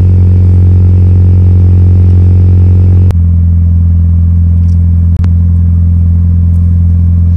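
Mitsubishi Lancer Evolution VIII's turbocharged 4G63T four-cylinder idling steadily, kept running by the turbo timer's cool-down countdown. About three seconds in there is a click and the higher part of the hum drops away. A second click follows about two seconds later.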